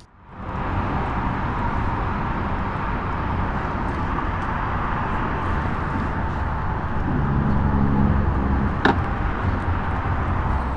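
Motorcycle being ridden at speed: steady wind rush on the helmet microphone with the engine note underneath. The engine note rises briefly about three-quarters of the way through, followed by a single sharp click.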